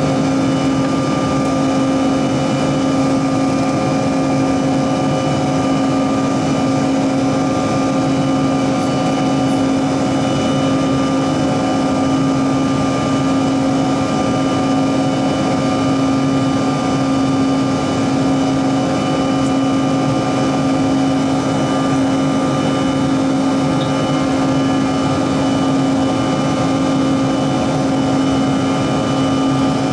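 Cabin noise of a Bombardier CRJ-900 in flight, heard from inside next to the wing: a steady rush of air and engine noise with a constant low drone and several steady whining tones from its rear-mounted GE CF34 turbofan engines.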